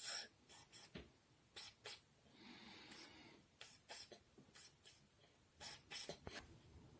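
Faint small handling noises: scattered light clicks and taps, with a brief soft scrape about two and a half seconds in.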